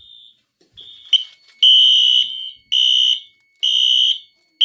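Wheelock fire alarm horns sounding in high-pitched pulsed beeps about a second apart, loud and regular from about one and a half seconds in. They follow a few weaker tones and a sharp click. The horns are still settling into sync with each other.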